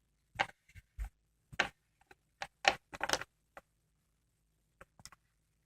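Plastic Littlest Pet Shop toy figures and props being handled and set down on a hard surface. About a dozen irregular, sharp clicks and taps, bunched in the first three seconds with a few more near the end.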